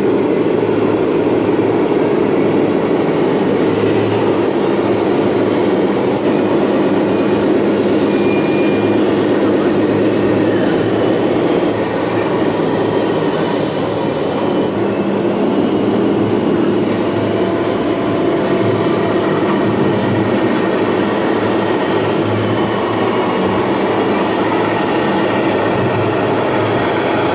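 Radio-controlled model Scania trucks running, a steady, low engine-like drone with a slight rumble.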